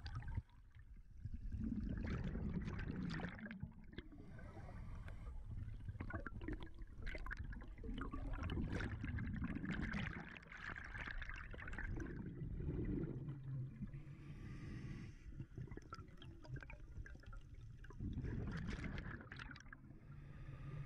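Underwater sound of a scuba diver's regulator exhaling: bubbles rush and gurgle past the camera in several bursts a few seconds apart, over a steady low rumble of water.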